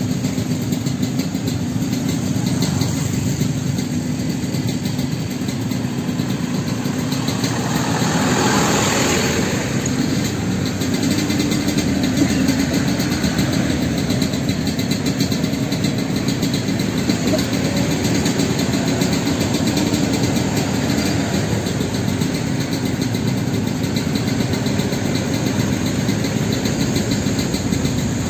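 Vehicle engine idling steadily close by, a low even rumble, with a louder rush lasting about two seconds around eight seconds in.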